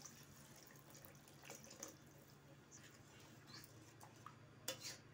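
Faint pouring of hot water into fried masala paste in a kadhai, then a spatula stirring the thinning gravy, with a few light scrapes against the pan.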